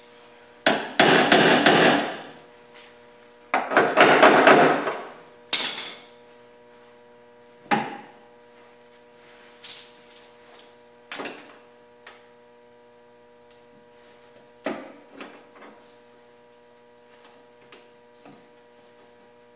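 Power driver running sheet metal screws into a steel cab corner repair panel in two loud bursts of rapid hammering. Scattered single clicks and knocks of tools and clamps on the sheet metal follow, over a faint steady hum.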